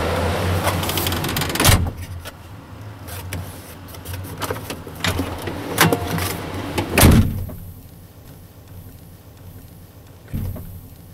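Several sharp knocks and clunks over a steady low hum, the loudest about seven seconds in, like hard plastic cab fittings being handled.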